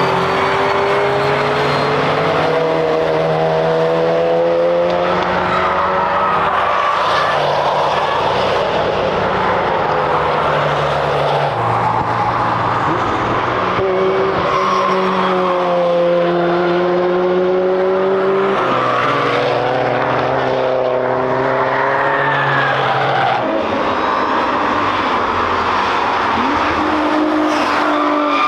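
Cars being driven hard on a race track, several engines running over one another and rising and stepping in pitch through gear changes.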